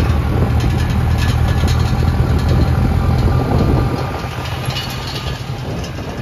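Vehicle engine running with a steady low rumble, loud for the first four seconds and then easing off.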